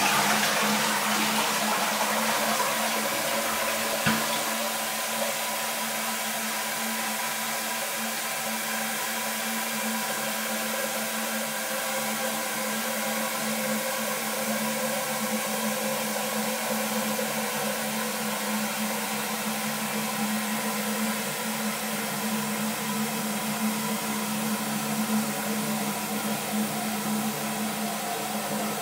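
Toilet flushing: the rush of water eases over the first few seconds, then the cistern refills with a steady hiss of water and a steady hum-like tone from the fill valve. A small click comes about four seconds in.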